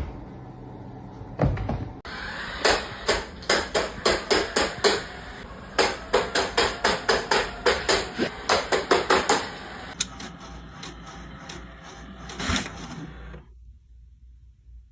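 A fast run of sharp knocks or taps, about three or four a second, that stops about ten seconds in, followed by one more knock a little later.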